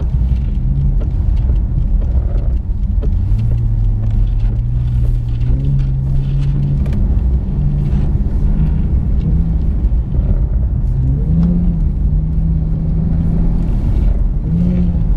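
Porsche's engine pulling under throttle and easing off, its pitch rising and falling several times, over a steady low rumble.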